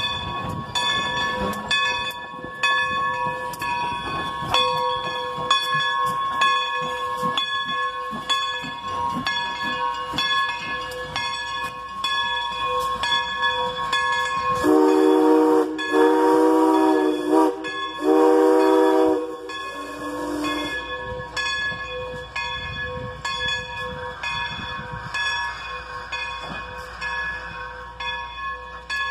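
Steam whistle of 1925 Baldwin 2-8-0 No. 40 blowing several blasts, loudest of all, about halfway through. The uploader guesses it is a Crosby whistle. Underneath, a railroad crossing bell rings with steady, evenly spaced strokes, and the low rumble of the passing train fades out in the first half.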